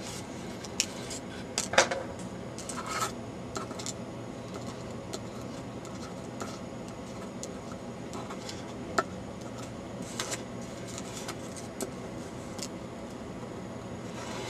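Scattered small clicks and taps from metal tweezers picking up and handling a tiny surface-mount resistor for placement, over a steady low hum.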